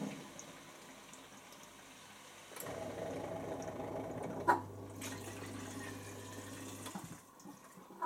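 Water rushing inside a Bosch Classixx dishwasher, starting about a third of the way in. A click comes about halfway, a low steady hum joins the water, and both cut off abruptly near the end. A second click follows at the very end.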